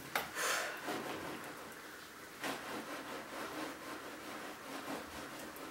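Faint rustling and rubbing from gloved hands working at a large mound of dry-ice soap foam, with a few soft knocks.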